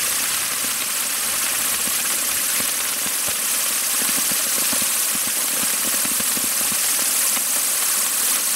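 Komet 'Strahlensonne B' firework sun spraying sparks from its fountain charges: a loud, steady hiss with a fine crackle running through it.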